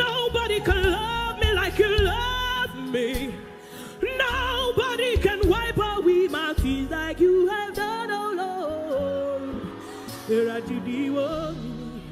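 A woman singing gospel live through a microphone and PA, her voice moving in quick runs that bend up and down in pitch, over sustained chords and bass from a backing band.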